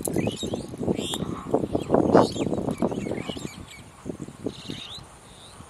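Small birds chirping in short gliding calls, over a dense run of low knocks and indistinct voices that dies down after about three seconds.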